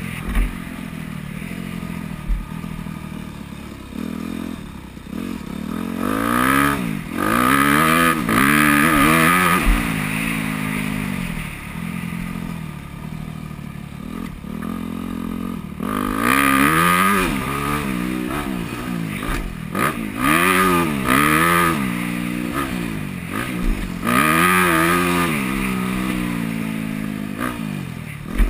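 2009 Yamaha YZ250F's four-stroke single-cylinder engine revving up and falling back over and over as the bike is ridden around a motocross track. Several stretches of loud rushing noise come over the engine, with a few sharp knocks.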